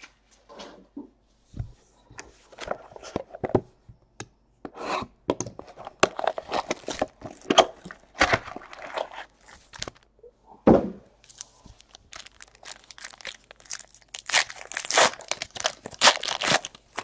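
Crinkling and tearing of the plastic and foil wrapping on a trading-card hobby box as hands strip it off, in irregular crackles that are longest and loudest near the end. A single dull knock sounds a little past ten seconds in.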